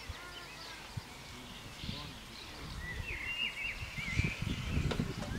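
Small birds chirping, with a run of quick chirps and short rising whistles about three seconds in, over steady outdoor background noise. Low, uneven rumbling swells up near the end.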